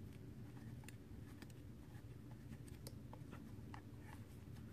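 Faint, irregular small clicks and ticks of a hand-held Torx screwdriver turning a long screw out of a plastic drill battery case, over a low steady hum.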